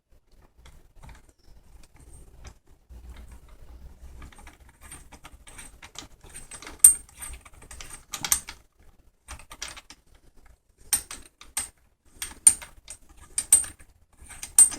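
Metal parts of a rifle's muzzle shroud and muzzle brake clicking and clinking as they are handled and worked loose. The clicks are sparse and soft at first, then louder and more frequent from about halfway, with a few sharp metallic clinks standing out.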